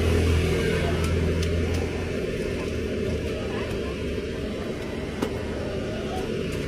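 Low rumble of a passing motor vehicle, easing about two seconds in, with a few light clicks of chopsticks and a wire noodle strainer at the pot.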